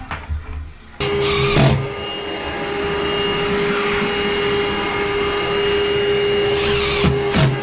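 A motor running steadily with a rushing sound and a constant whine, starting suddenly about a second in.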